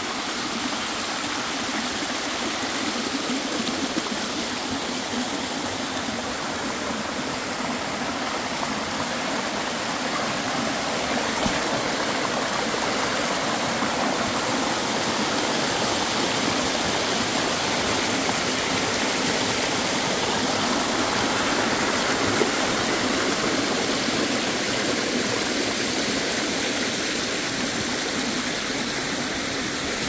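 Shallow mountain stream rushing over bare rock slabs and splashing down small cascades: a steady, even rush of water that grows slightly louder in the middle.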